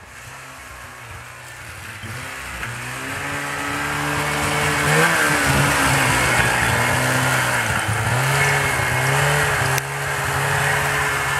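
Snowmobile engine running and getting louder over the first few seconds, its pitch rising and falling as the throttle is worked.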